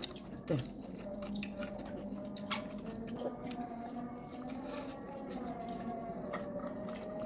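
Close-up wet chewing and mouth clicks of a person eating rice and fried food with the fingers, with a faint steady hum underneath.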